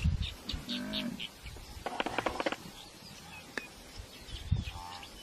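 Scattered short animal calls and high chirps, with a quick run of rapid pulses about two seconds in and a few low thumps.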